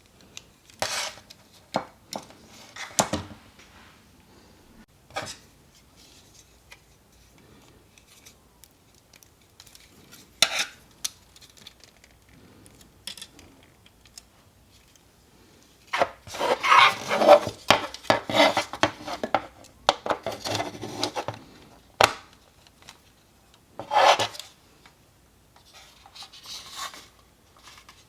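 Plastic model kit parts being handled and worked by hand: scattered clicks and snaps with stretches of rubbing and scraping, busiest a little past the middle and with another short burst near the end.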